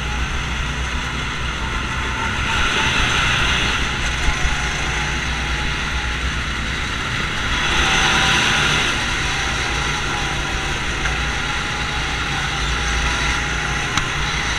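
Small gasoline go-kart engines running steadily at speed, the driver's own kart and others close by, with a rushing hiss over the engine hum. The sound swells twice, the second time while passing through a concrete underpass.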